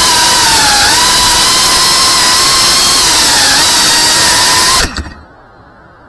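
FPV racing drone's electric motors and propellers whining with a loud hiss, the pitch wavering as the throttle changes. About five seconds in there is a knock and the motors stop suddenly: the drone has come down on the ground.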